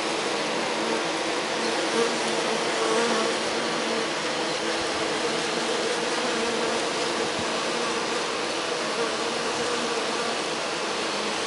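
Many honeybees buzzing together close up at a hive entrance, a steady, even hum.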